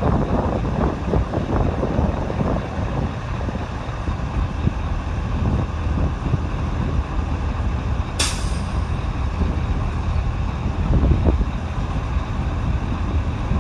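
C-17 Globemaster's four turbofan engines giving a steady, crackling low rumble as the jet takes off. A brief sharp hiss cuts in about eight seconds in.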